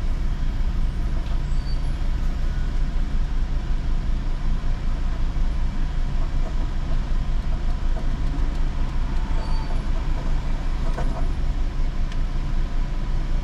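Car engine idling with a steady low hum, heard from inside the cabin while the car stands still.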